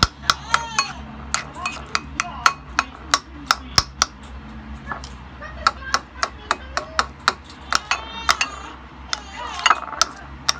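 Metal spoon and fork clinking against a ceramic bowl as they chop and mash pieces of ripe mango: irregular sharp clinks, roughly three a second.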